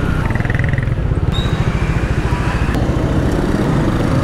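Yamaha NMAX 155 scooter's single-cylinder engine running, with a fast, even pulse and a steady hiss over it.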